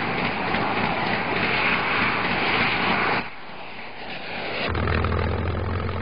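Propeller fighter's piston engine running, a loud rushing noise that drops away about three seconds in and then builds again. A steady low engine hum sets in near the end.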